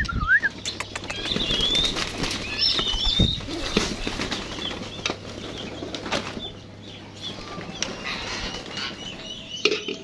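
Lovebirds flapping their wings and chirping, with short twisting chirps in the first few seconds and many scattered sharp clicks throughout.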